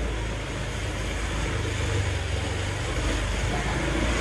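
Motorbike engine running steadily while riding through a narrow alley, a low steady hum with road noise.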